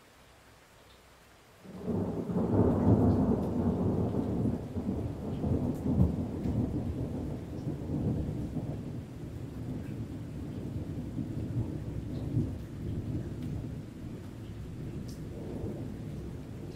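A thunderclap about two seconds in, starting sharply and rolling into a long, deep rumble with crackling peaks that slowly fades but keeps going.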